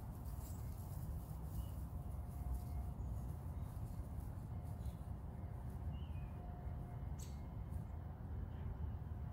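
Quiet outdoor ambience: a steady low rumble with a few faint, short bird chirps scattered through it, the clearest a quick sweep about seven seconds in.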